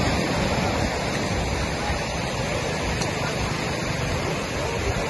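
Steady rushing wash of sea surf breaking along a shallow sandy shore, an even noise without distinct events.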